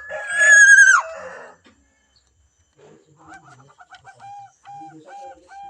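A rooster crows once at the start, a held call of about a second that drops in pitch at the end. From about three seconds in comes a run of short repeated clucking notes, several a second.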